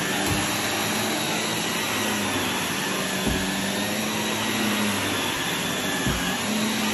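Shark NV380 upright vacuum cleaner running steadily while pushed over carpet, its motor hum wavering slightly with the strokes. Three dull low thumps come at roughly three-second intervals.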